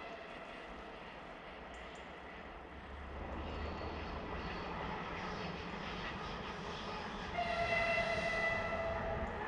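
A 2ES4K two-section electric locomotive running light, without a train: its low rumble grows as it approaches, then about two seconds before the end it sounds its horn, one steady blast lasting about two seconds.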